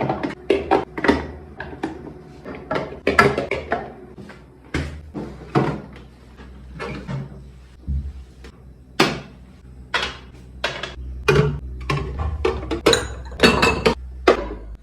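Irregular clicks, knocks and clatter, several a second, from a two-door refrigerator's doors, shelves and drawers being opened, shut and handled.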